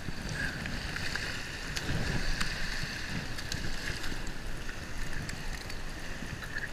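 Wind rumbling on the microphone over a steady hiss of surf, with a few faint clicks as pliers work a hook out of a skate's mouth.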